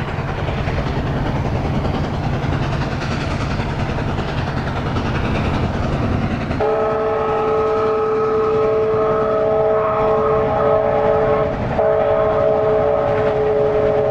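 Canadian Pacific 4-6-4 Hudson steam locomotive No. 2816 approaching with its train, a steady rumble. About halfway through, its chime whistle sounds a long multi-note blast, breaks off briefly, and sounds again.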